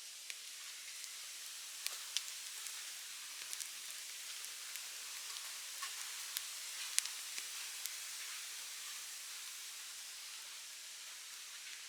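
Open wood fire burning with a steady hiss and scattered sharp crackles and pops, the loudest pop about seven seconds in.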